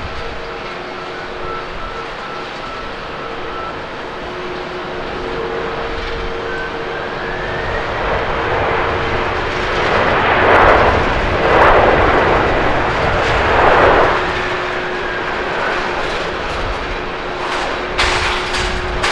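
Twin jet engines of an All Nippon Airways Boeing 767-300ER rolling down the runway: a steady engine whine, a whine rising in pitch about seven seconds in, then the engine noise swelling loudest around ten to fourteen seconds in as the jet passes, and easing off after.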